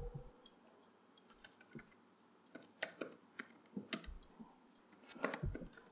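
Typing on a computer keyboard: faint, slow, uneven keystrokes with short pauses between them.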